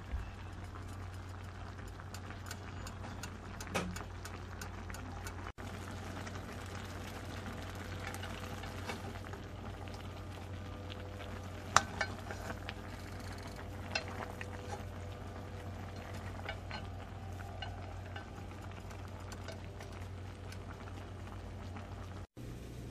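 Stainless-steel pot of pinakbet vegetables simmering over a steady low hum, with a few sharp clicks of a utensil against the pot, the loudest about halfway through.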